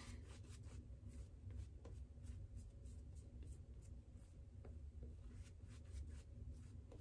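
Faint, irregular swishing strokes of a Hendrix Classics synthetic shaving brush working a very wet, thin shaving-soap lather over the face.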